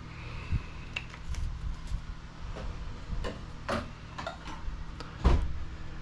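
Scattered light clicks and knocks of small objects being handled and set down on a workbench, with a louder knock about five seconds in.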